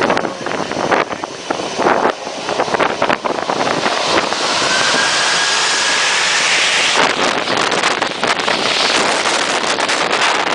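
Blast of air from an aircraft buffeting the microphone: a loud, gusty rush of wind noise. It holds steadier for a few seconds in the middle, where a faint whistle is heard.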